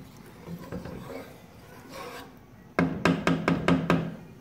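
A wooden spatula stirs and scrapes through potatoes, chickpeas and water in a metal cooking pot. Near the end it is knocked against the pot in a quick run of about eight sharp taps, each with a low ring from the pot, loudest of all.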